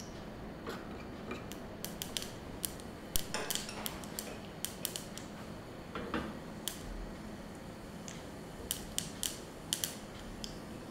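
Mustard seeds beginning to splutter in hot oil in a small steel pan: irregular, scattered sharp pops. A spoon stirs and clinks against the pan now and then.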